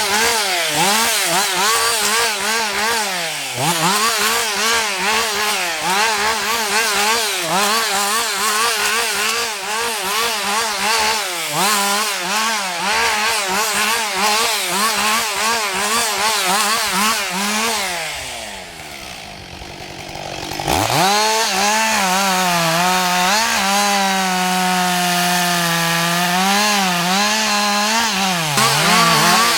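Husqvarna 560 XP two-stroke chainsaw cutting wood, its engine speed wavering rapidly as the chain bites. About two-thirds of the way through, the revs fall away to idle for a moment, then climb sharply back to full throttle and the sawing goes on.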